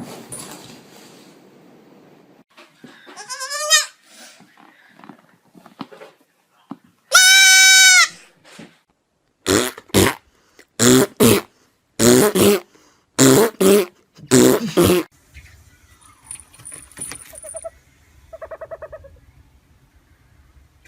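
Loud animal calls: one long pitched call about seven seconds in, then a run of about seven short loud calls in quick succession.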